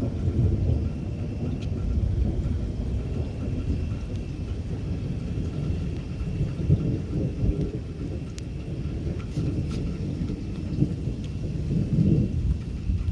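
Thunder rumbling on and off through a thunderstorm, swelling louder about seven seconds in and again near the end, with rain falling and a few raindrop ticks.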